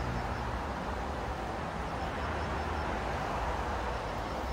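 Steady outdoor ambience: an even hiss over a low rumble, with short runs of faint, high, quick chirps now and then.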